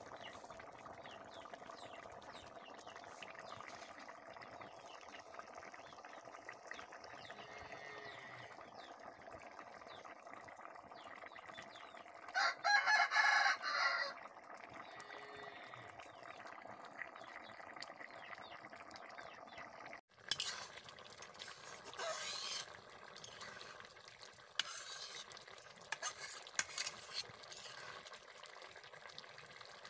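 Vegetable and fish curry boiling and bubbling in an aluminium kadai over a wood fire. A rooster crows once, loudly, about halfway through. Later a ladle stirs the curry, clinking and scraping against the pan.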